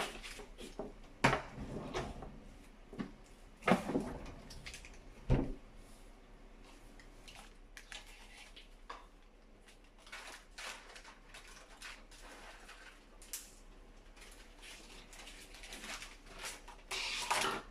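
Kitchen handling sounds: three sharp knocks in the first six seconds, then light clicks and rustles, and a louder rustling stretch near the end.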